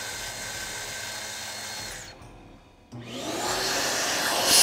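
A cordless drill runs steadily for about two seconds and stops. About a second later a shop vacuum switches on, its whine rising as the motor spins up, with a loud rush of air near the end.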